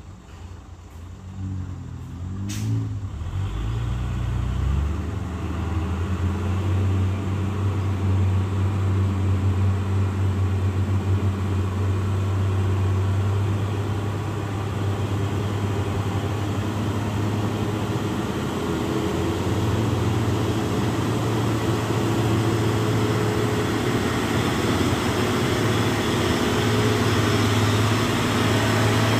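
Diesel engine of a Mitsubishi 6x4 cargo truck working hard up a steep climb, growing louder over the first several seconds as it approaches and then running steadily close by.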